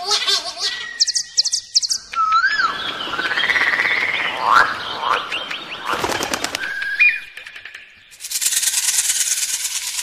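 Pet birds calling: short chirps and whistled notes that rise and fall in pitch, a spell of rustling noise in the middle, and a fast, even rattling sound near the end.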